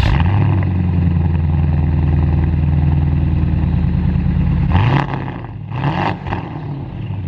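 Porsche engine running at a steady idle just after being started. It is then blipped twice in quick succession, the pitch rising and falling each time.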